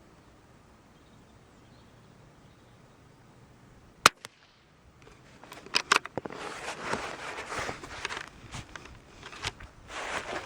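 A single shot from a .22 LR bolt-action rifle firing subsonic ammunition, a short sharp report about four seconds in. It is followed by metallic clicks and rustling handling noise as the bolt is worked and the rifle is handled.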